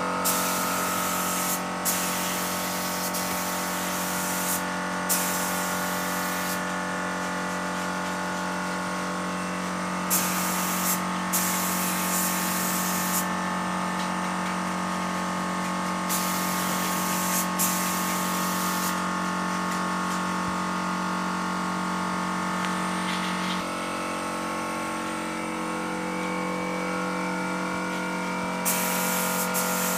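Gravity-feed air spray gun spraying PU wood polish: repeated sharp-edged bursts of hissing air, each trigger pull lasting from under a second to a few seconds, over the steady hum of the air compressor feeding the gun.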